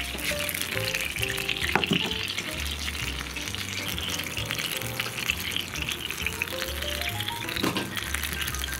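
Baked cheese and juices on stuffed zucchini sizzling and crackling in a hot baking dish fresh from the oven, under background music with a simple melody and bass.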